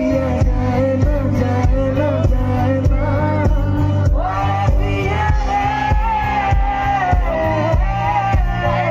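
Live band amplified through a PA: a man sings into a microphone over bass guitar and a steady drum beat.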